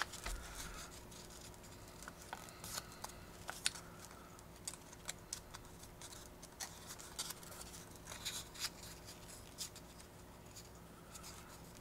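Faint, scattered small clicks and scratchy rustles of stiff paper model parts being handled and bent by hand.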